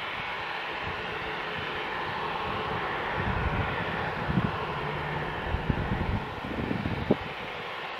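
Boeing 737-800 jet airliner giving off a steady rushing hiss, with irregular low rumbles coming and going through it.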